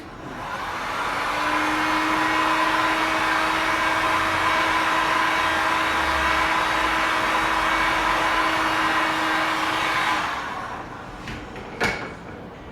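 Hand-held electric blower drying the freshly brushed touch-up colour coat: it spins up, runs steadily for about nine seconds as a rush of air with a steady hum, then winds down. A single sharp knock follows near the end.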